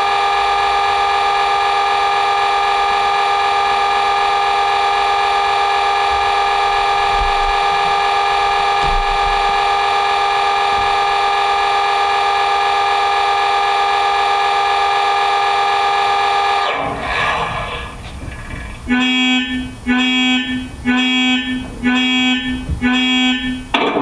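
Sound-fitted Hattons Class 66 model locomotive's speaker playing a long, steady diesel horn note, which cuts off about seventeen seconds in. A few seconds later come five short horn toots, about one a second.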